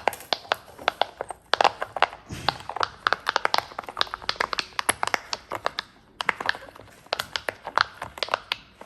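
A giant silicone pop-it fidget toy having its bubbles pressed one after another: a quick run of sharp pops, several a second, with a brief break about six seconds in.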